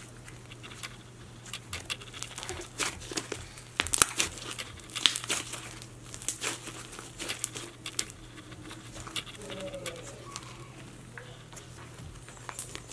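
Green apple icy slime being stretched and squeezed by hand, giving off irregular crackling and popping, loudest about four to five seconds in.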